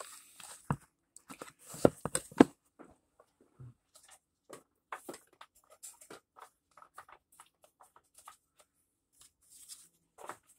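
Hard plastic magnetic trading-card holders being handled: scattered small clicks, clacks and rustles as the cases are picked up, opened and set down, with two sharper clacks about two seconds in.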